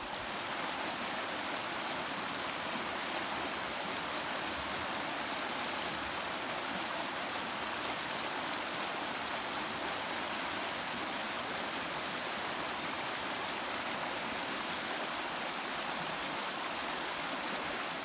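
Creek water rushing past, a steady, even rush with no change.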